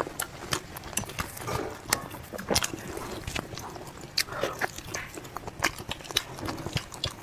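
A person chewing and biting food close to the microphone: irregular mouth clicks and smacks, several a second.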